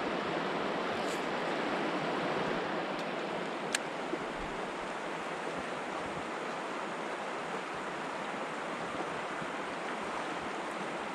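Steady rushing of river water running over rocky shoals, with a single sharp click about four seconds in.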